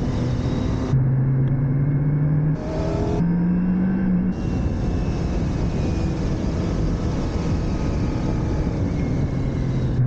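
Motorcycle engine running under way, its pitch holding steady and then stepping up and down with the throttle, over heavy, steady wind and road noise.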